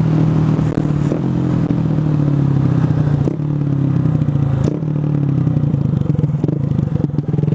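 Honda Grom's 125 cc single-cylinder engine running while the motorcycle is ridden at a fairly steady speed. The note dips briefly three times.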